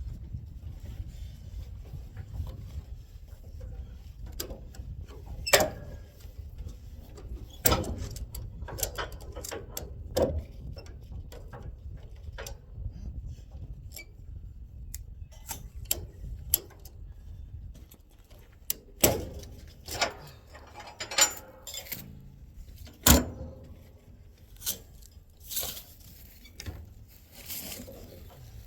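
Irregular sharp knocks and clanks, a couple dozen of them, scattered through the stretch, with the loudest about 6, 19 and 23 seconds in. A low rumble sits under the first part and fades out about a third of the way through.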